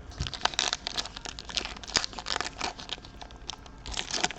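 Crinkling and crackling of a foil trading-card pack wrapper being handled and torn, in a quick, irregular run of small crackles.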